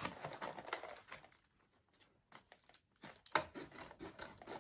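Toy packaging of cardboard and plastic rustling and crinkling as hands work at the box, in short scattered crackles with a quiet gap of about two seconds in the middle.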